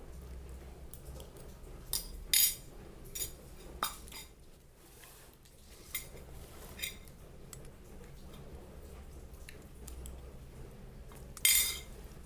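Dishes and utensils being handled: a scattering of short clinks and knocks over a low hum, with two louder, longer scrapes, one about two seconds in and one near the end.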